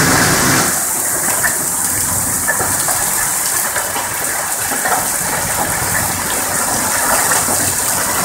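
Heavy rain falling in a steady, dense hiss with many small scattered ticks, a little louder in the first second.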